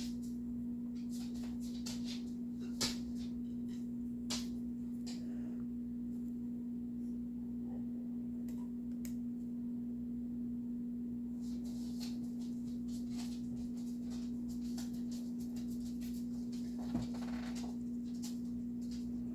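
A steady low electrical-sounding hum, with a few faint taps and clicks now and then.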